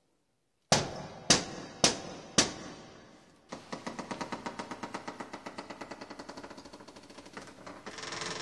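Four loud knocks on a wooden door, about half a second apart, followed by a long run of rapid, evenly spaced clicks that grows louder near the end.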